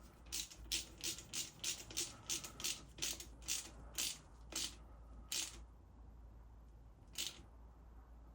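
Hand ratchet wrench clicking in short, quick strokes on a bolt, about three clicks a second, stopping about five and a half seconds in, with one last click near the end.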